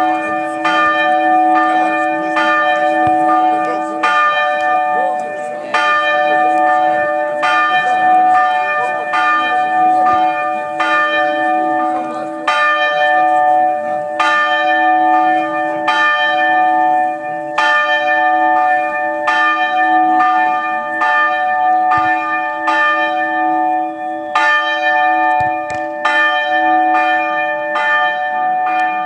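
A church bell tolled in a steady rhythm, about one stroke every three-quarters of a second, its tone ringing on between strokes.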